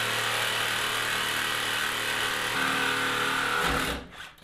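Cordless DeWalt reciprocating saw running steadily as its blade cuts through the rusted, frozen door latch of a steel truck door. Its pitch shifts up about halfway through, and it stops near the end.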